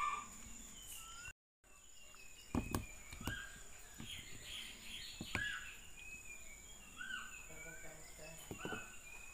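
Chopped mango pieces tipped from a plastic tub into a steel jar, landing with a few soft knocks, most of them a couple of seconds in and again about halfway. Birds chirp throughout in the background over a steady high-pitched tone, and the sound drops out completely for a moment about a second and a half in.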